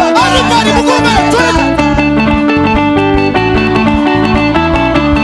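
Loud live praise music with guitar and a steady beat; a voice wavers over it in the first second or two and then drops away, leaving the band playing.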